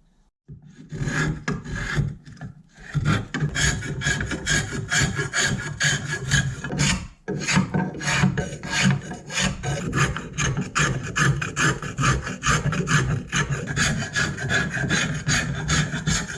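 Hand filing on a ball peen hammer being restored: quick, steady back-and-forth scraping strokes, several a second. They begin about half a second in, with two short pauses.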